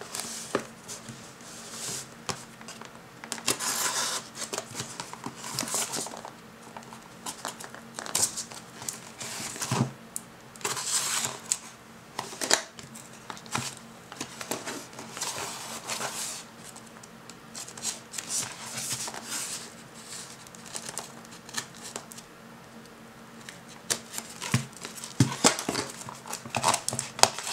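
Packing tape being picked at and peeled off a cardboard shipping box in short, scattered rasping pulls, with crinkling and knocks as the box is handled.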